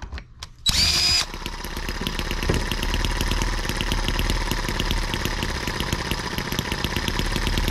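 A cordless drill briefly whines as it spins the flywheel of a small single-cylinder M18 model engine. About a second in, the engine catches and keeps running on its own with a rapid, even ticking beat.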